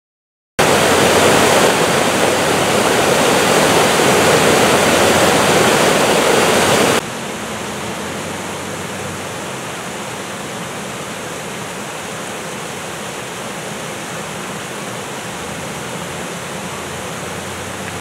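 Water rushing and splashing over small rock-ledge waterfalls in a steady rush. It comes in sharply about half a second in and is loud and full. About seven seconds in it drops suddenly to a quieter, less bright steady rush.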